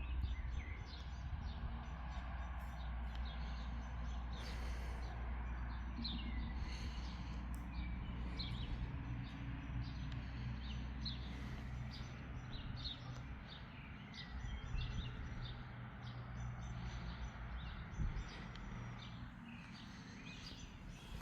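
Small birds chirping over and over, over a steady low rumble that drops away about two-thirds of the way through.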